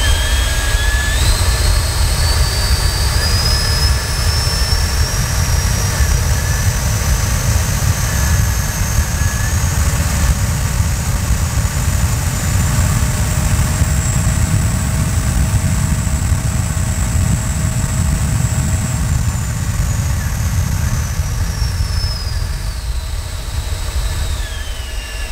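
Freewing Vulcan's 70 mm 12-blade electric ducted fan, driven by a 2957-2210Kv brushless motor on a 6S pack, run up to high power: a high whine that climbs in pitch over the first several seconds, holds with a heavy rush of air, then winds down near the end.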